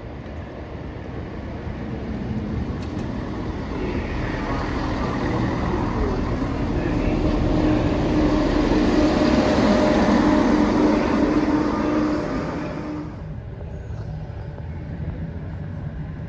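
A train moving through the station: its running noise and a steady hum build up to a peak, then cut off abruptly about thirteen seconds in.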